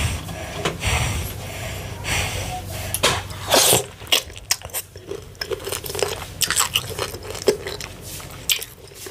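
Close-miked mouth sounds of eating fufu with ogbono and ewedu soup: chewing with many short mouth clicks, coming thick and fast from about four seconds in.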